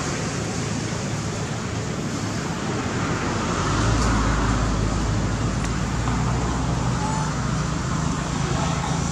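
An engine running steadily with a low hum over a constant rushing noise. The hum grows louder about four seconds in.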